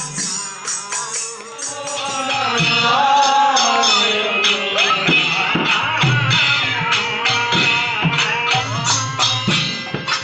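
Hindu devotional bhajan: a group singing to a harmonium, with dholak drum strokes and small brass hand cymbals jingling in quick time. The drum strokes grow heavier about halfway through.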